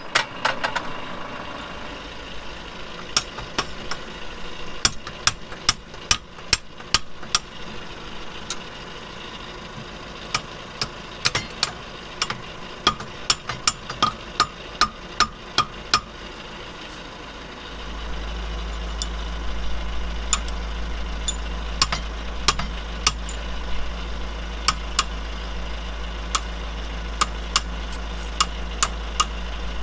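Tractor engine idling, with a steady low hum that grows louder about two-thirds of the way through. Over it runs a long series of sharp metallic clinks and knocks from work on the three-point hitch's top link.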